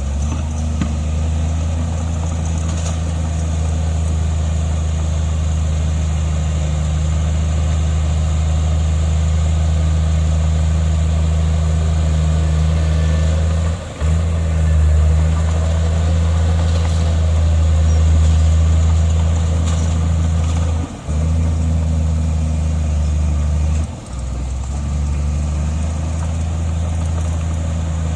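Komatsu bulldozer's heavy diesel engine running steadily with a deep, even drone. The sound drops out briefly three times.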